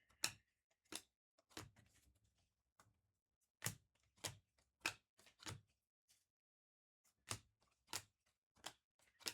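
Sharp snapping clicks of trading cards being flipped through one at a time, in short runs of three or four clicks a little over half a second apart.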